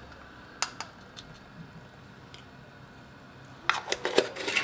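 A spice jar of ground nutmeg being shaken over a mixing bowl: a few isolated clicks, then near the end a quick run of sharp taps and rattles.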